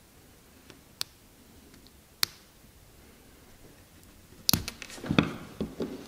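Small sharp clicks of a tiny screwdriver prying at the plastic insert of a Surefire flashlight tail cap: two single clicks, then a quick run of clicks and knocks about four and a half seconds in as the screwdriver and parts are handled and set down on the wooden workbench.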